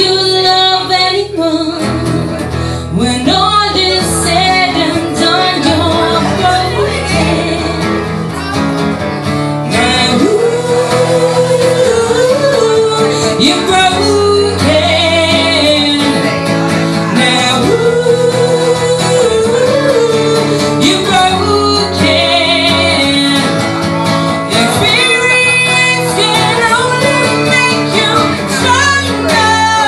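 Live acoustic duo: a woman singing a ballad melody over a strummed acoustic guitar, amplified through a small PA.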